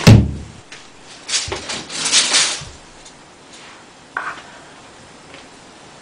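A loud thump, then a few short clattering, rustling noises and a single click.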